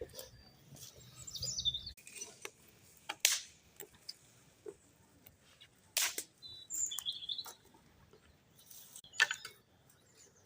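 Small birds giving a few short, high chirps, twice in groups, with scattered sharp clicks and knocks in between, the loudest three about three seconds apart.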